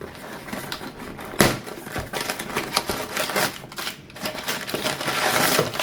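Small box being opened and its packaging handled: rustling and crinkling with scattered clicks and knocks, one sharp knock about a second and a half in and a burst of crinkling near the end.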